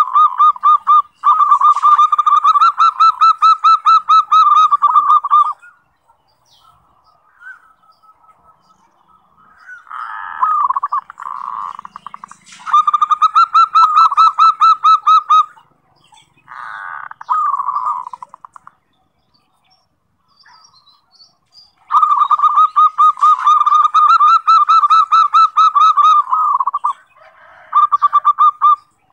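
Zebra dove (perkutut) singing its rapid rolling coo. Phrases of quick staccato notes lasting several seconds are separated by pauses, with two shorter, rougher phrases in the middle.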